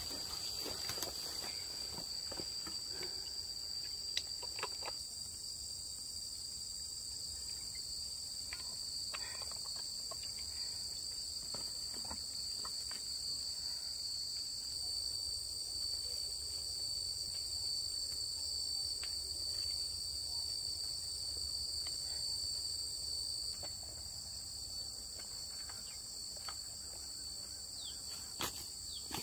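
A steady, high-pitched chorus of insects, two shrill tones held without a break. Scattered light clicks and rustles in the first few seconds and again near the end.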